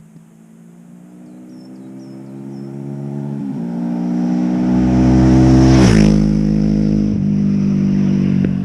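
Motorcycle with an aftermarket exhaust approaching under acceleration. Its engine note rises in pitch with a gear change about three and a half seconds in, passes close about six seconds in with a sharp drop in pitch, then pulls away with another shift.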